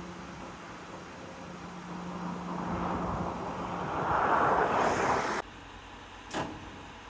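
Network Rail engineering train approaching, its engine and running noise growing steadily louder for a few seconds, then cutting off abruptly. A quieter steady hum follows, with one brief hiss about six seconds in.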